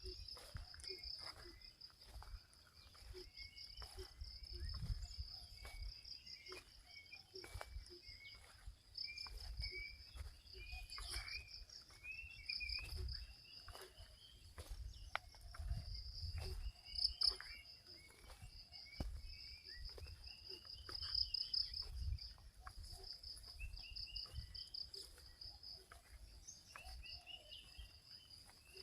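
A steady, high-pitched insect trill pulsing without a break, with many short rising bird chirps scattered over it. A low rumble comes and goes underneath.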